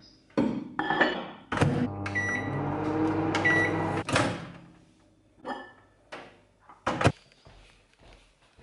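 Microwave oven: a few clicks and knocks of door and dish, then the oven running with a steady hum for about two and a half seconds, with two short high tones in it. Smaller knocks follow, with one sharp click about seven seconds in.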